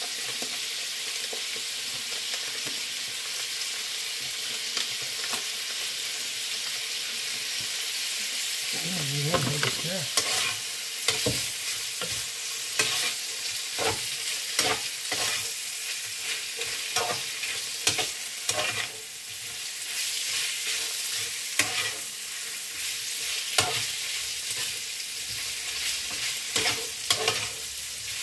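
Sausage and ham frying in a pan with a steady sizzle. From about nine seconds in, a utensil stirs the food, knocking and scraping against the pan in repeated sharp clicks.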